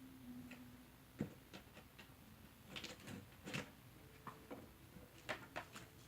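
Quiet room with scattered light clicks and knocks of small objects being handled, the sharpest knock about a second in, and a brief faint hum at the start.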